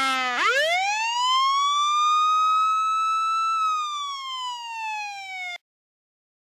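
Police siren sound effect giving one long wail that rises sharply, holds, then falls slowly before cutting off abruptly near the end.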